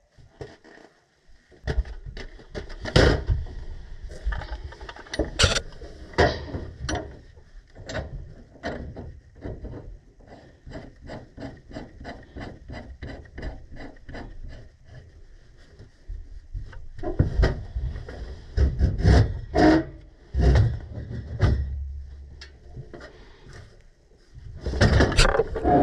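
Hand work on gas pipe fittings with metal tools: scrapes and knocks, with a run of evenly spaced clicks, about two a second, in the middle, and heavier clanks near the end.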